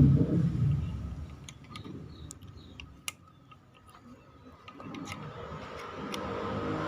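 Scattered light clicks from a USB charging cable and its connector being handled, with one sharper click about three seconds in, over a low background rumble that fades out and then builds again.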